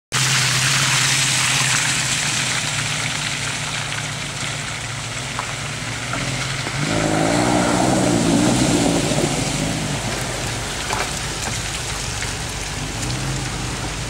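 A Land Rover 4x4's engine running as it drives through a shallow water crossing, with a steady hiss of splashing water. About seven seconds in, the engine revs harder for a few seconds as it ploughs through the water, then eases off.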